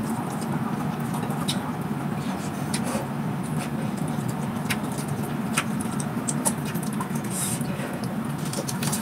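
Eating by hand: chewing and mouth smacks with scattered short clicks as fingers scoop rice from the plate, over a steady low hum.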